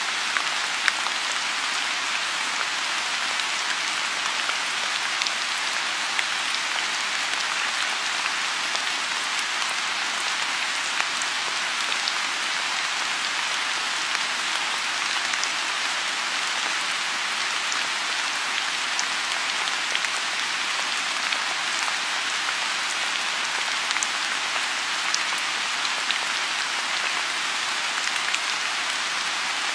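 Steady rain falling, with the odd sharp drop tick over an even hiss, as of rain on a pond.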